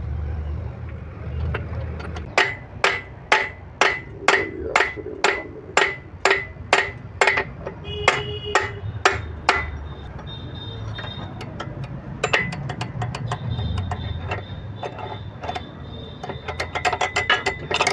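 Hammer striking a steel punch held against a tractor's PTO gearbox parts, sharp metallic blows at about two a second for some seven seconds. After a brief pause comes a quicker run of lighter, ringing taps.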